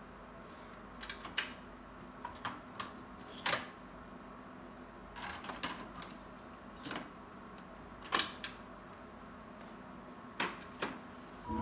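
Plastic clicks and clunks of an LG mini hi-fi's cassette deck being handled: the tape door opened, a cassette put in and the door pushed shut, about a dozen separate clicks spread out with short pauses between them, over a faint steady hum.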